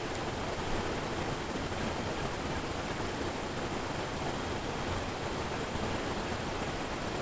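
Steady rush of fast-flowing stream water running over rapids.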